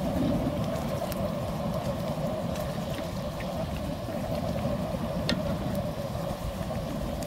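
Steady roar of an outdoor gas burner under a large steel stockpot, with the meat and broth at a rolling boil and a few faint clicks from stirring with a wooden spoon.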